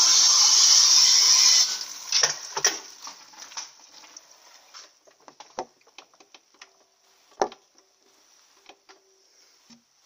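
Electrolux LTE 12 top-loading washer in its spin cycle, the basket spinning with a loud steady rushing noise that cuts off suddenly after about two seconds. Scattered clicks and knocks follow.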